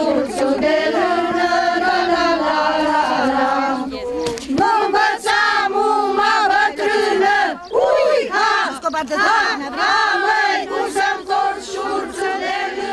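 Group of women singing a Romanian folk song unaccompanied and loudly, in held, wavering notes. A short break comes about four seconds in, then a new phrase.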